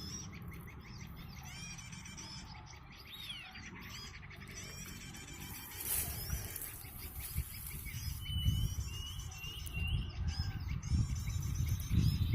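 Small birds chirping and calling: many short high chirps, trills and up-and-down notes overlapping, with a run of short repeated notes about eight seconds in. A low rumble grows louder in the second half.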